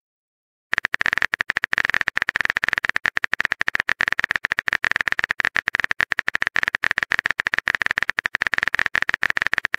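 Phone keyboard typing sound effect from the TextingStory chat app: a rapid, unbroken run of short, bright clicks as a message is typed out letter by letter, starting just under a second in.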